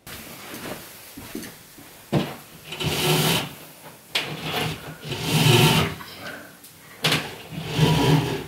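Cat 6 cable and washing line being dragged through a hole in the ceiling and the wall cavity, rubbing and rasping in three pulls about a second long each.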